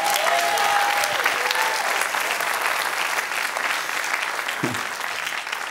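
Church congregation applauding in response to the sermon's climax, the clapping slowly fading toward the end.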